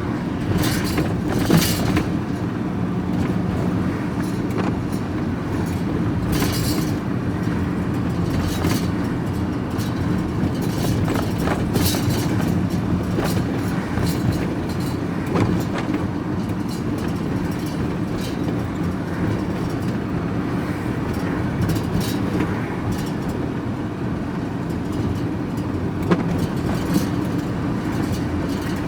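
Road vehicle driving, heard from inside the cab: a steady engine and road drone with irregular rattles and knocks every second or two.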